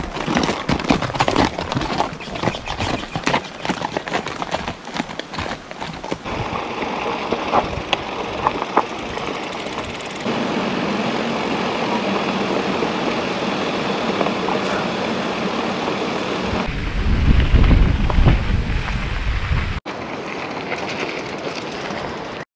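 E-mountain bike ride on a dirt trail: tyre and trail noise with wind rushing over the camera microphone, and a heavy low wind rumble for a few seconds near the end.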